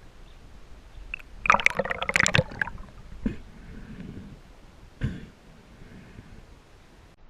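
Water splashing and bubbling close to the microphone: a dense burst of splashing a second and a half in, then two short knocks.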